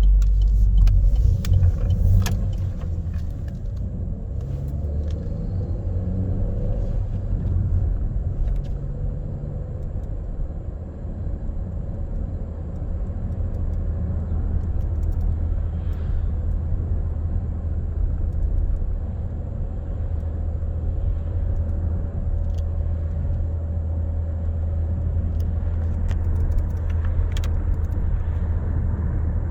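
Opel Astra's 1.4 turbo petrol four-cylinder (A14NET) engine running steadily at idle, with occasional light clicks over it.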